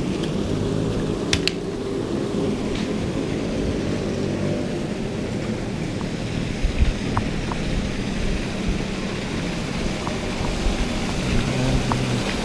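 Paddlewheel pond aerators running: a steady motor drone with the hiss of splashing water, broken by a few light clicks.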